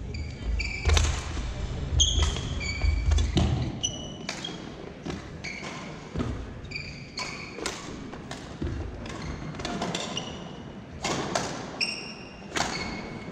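Badminton rally: rackets hitting the shuttlecock in sharp clicks and the players' sneakers squeaking on the hardwood court, with heavy footfalls and lunges thudding in the first few seconds.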